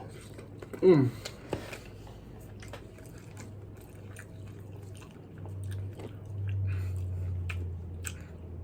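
A man chewing food close to the microphone, with many small mouth clicks and a brief vocal sound about a second in. A low steady hum comes in during the second half.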